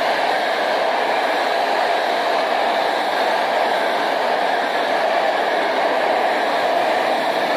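Freight train wagons rolling through the station at speed: a steady wheel-and-rail rushing noise.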